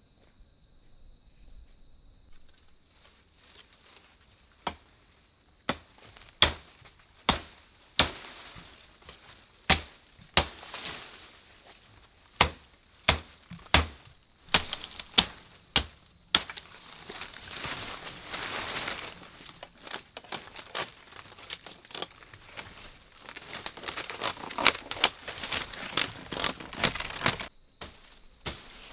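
Blade chopping into jungle plant stems: a long, irregular series of sharp strikes, with stretches of leaves and stems rustling between them. A steady high insect buzz is heard at the start and again near the end.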